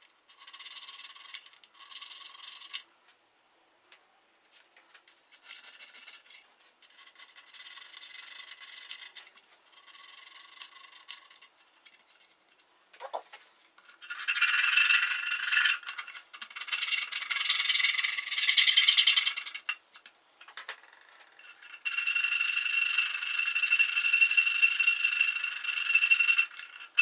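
Small hand files rasping back and forth on the wooden edge of a guitar body's f-hole, smoothing its curves, in runs of strokes with short pauses between them. The last long run carries a thin, steady squeal.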